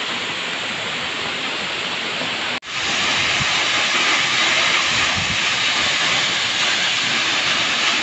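Waterfall pouring onto rocks: a loud, steady rush of falling water. It cuts out for an instant about two and a half seconds in, then comes back a little louder.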